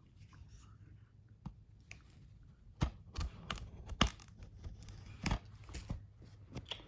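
Plastic shrink wrap being torn and crinkled off a DVD case, with scattered sharp crackles and clicks that get busier about three seconds in.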